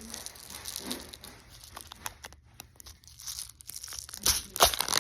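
Box of Nerds candy being torn open up close: papery tearing and crinkling made of many small crackles, getting louder near the end.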